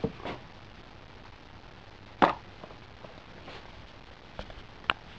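A few sharp handling knocks and clicks over a faint steady background, the loudest knock about two seconds in, as things in a cardboard box are moved about.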